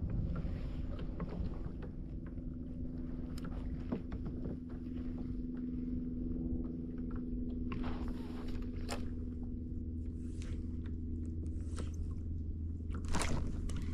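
Old Town BigWater ePDL kayak's electric pedal-drive motor running with a steady hum while the kayak moves, with a few short taps or splashes of water on the hull.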